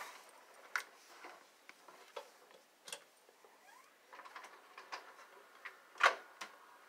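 Scattered light clicks, taps and rustling of cables and plastic connectors being handled while a modem is hooked up, with the sharpest click about six seconds in.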